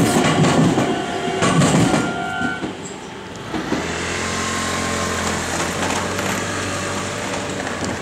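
Meitetsu 3300-series and 3100-series electric express train running over a level crossing, its rolling noise dying away about two and a half seconds in. From about four seconds on, a steady low hum with several tones holds.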